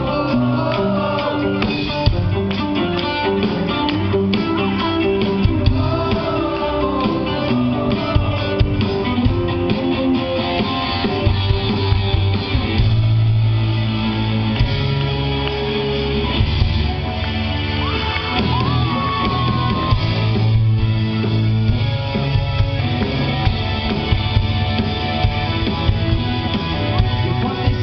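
A live rock band playing through a stage PA, with keyboards, electric guitar, bass and drum kit; a voice sings over it for the first several seconds, then the band plays on instrumentally.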